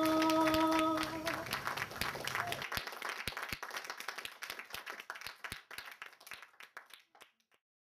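Audience applause, with a singer's last held note ending about a second in; the clapping then thins out to scattered claps and fades away.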